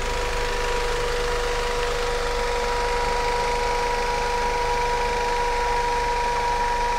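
Mercedes-Benz T1N camper van's engine running at low speed as the van creeps forward, with a steady whine throughout.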